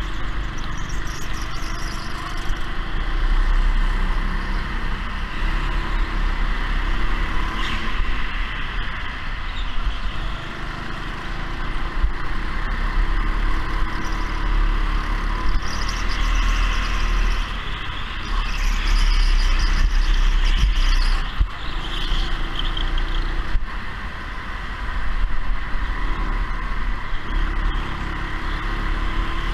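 Go-kart driven at speed, its motor note rising and falling through the lap over a loud, steady low rumble.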